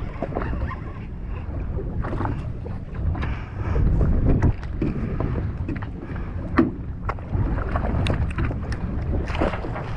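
Steady low rumble of wind and water around a small fishing boat, with scattered knocks and clicks.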